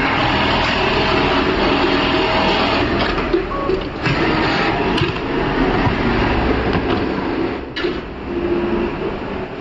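TTY computer-controlled industrial pattern sewing machine running at speed, stitching shoe-upper pieces held in a template clamp. A sharp click comes about eight seconds in, and the sound is a little quieter after it.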